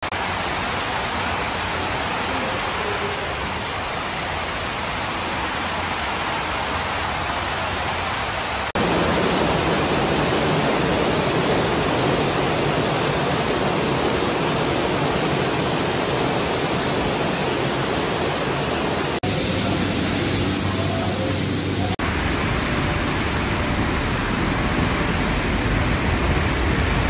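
Floodwater and heavy rain: a dense, steady rushing of water, like a waterfall, that changes abruptly from clip to clip. It is loudest about nine seconds in, where water cascades down a flight of station stairs.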